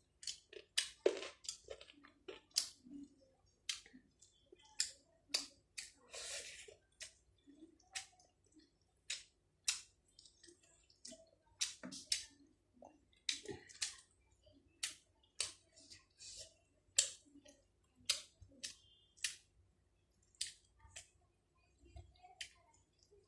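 Close-miked eating: wet mouth clicks and smacks of chewing rice and chicken, coming irregularly about every half second.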